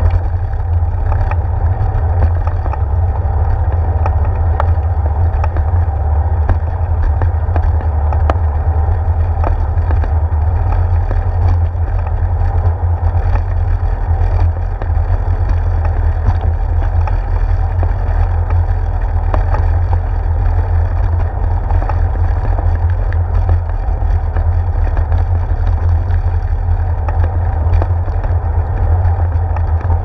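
Bicycle rolling over a wooden boardwalk, heard through a handlebar-mounted GoPro in its housing: a steady, loud low rumble of wind and tyre-on-plank vibration, with scattered light clicks and rattles.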